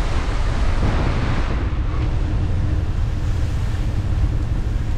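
Motorhome driving on a rain-soaked road, heard from the cab: a steady low engine and road rumble under the rushing hiss of tyres on wet pavement.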